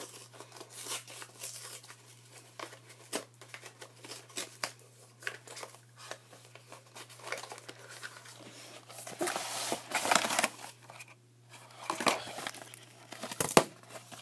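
Trading-card intro pack's packaging being unwrapped by hand: crinkling, rustling and tearing with many small clicks. Louder bursts of crinkling come about nine to ten seconds in and again near the end, over a faint steady hum.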